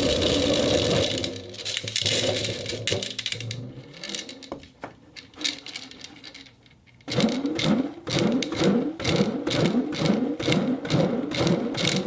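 Ceramic balls rolling and clicking against each other. The clatter thins to scattered clicks near the middle. About seven seconds in, a fast rolling starts with an even, whirring rhythm that rises in pitch roughly three times a second.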